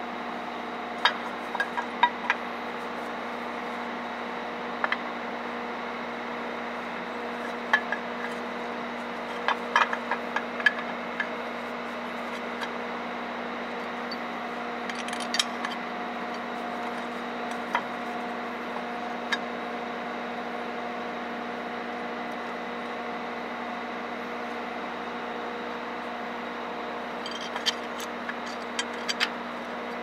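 Metal parts clinking and knocking now and then as a steel bracket is fitted by hand under an engine, with a few clustered taps near the start, in the middle and near the end, over a steady machine hum.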